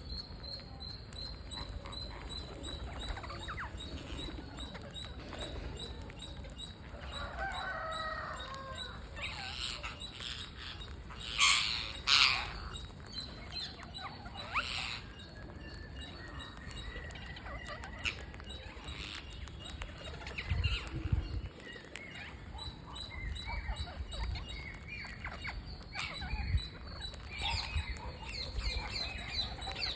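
Parrots calling while feeding: scattered short chirps and squawks, with two loud harsh screeches about a third of the way through.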